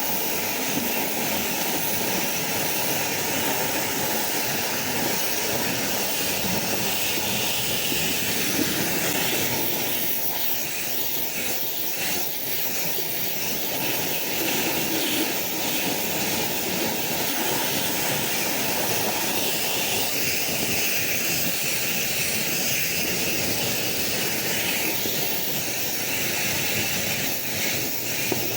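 Pressure washer running steadily, its water jet hissing as surfaces are rinsed down.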